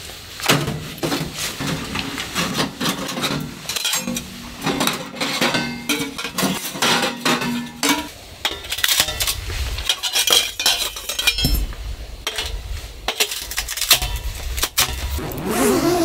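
Sheet-metal stovepipe sections clinking, clanking and scraping as they are slid out of a camp wood stove's firebox and fitted together. There are many sharp knocks, and for about the first half a sliding pipe rings with a steady scraping tone.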